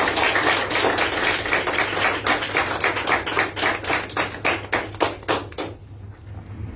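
A small audience applauding with distinct individual claps, thinning out and stopping about six seconds in.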